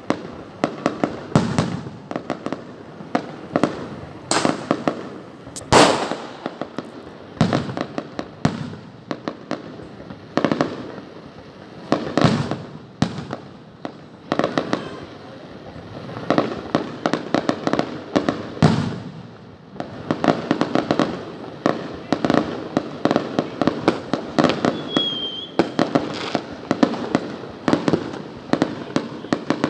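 Aerial fireworks display: shell bursts going off in rapid volleys of many quick bangs, with a few single louder bangs standing out among them.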